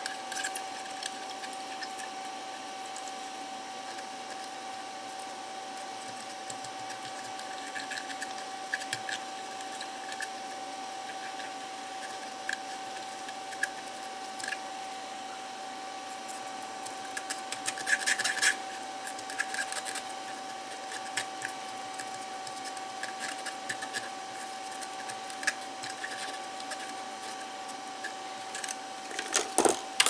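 A small electric fan runs steadily with a constant whine and hiss, under light scratching and tapping from a cotton swab scrubbing a circuit board, busiest near the middle and again near the end.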